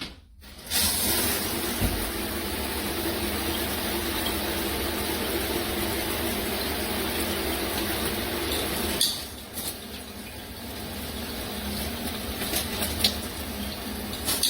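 Shower head spraying water, starting abruptly about a second in as a steady rushing hiss. About nine seconds in the spray drops to a quieter, lower rush, with a few sharp clicks.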